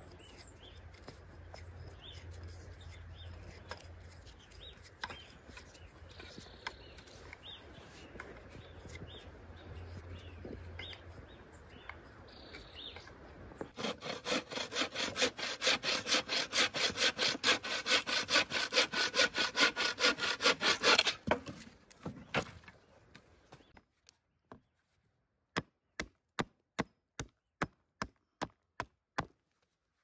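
A hand saw cutting through wood, with fast back-and-forth strokes for about seven seconds starting about halfway in. Near the end comes a run of about a dozen sharp, evenly spaced taps.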